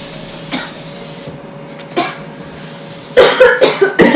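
Aerosol cooking spray hissing onto a baking pan in two short sprays, followed near the end by loud bursts of a person coughing.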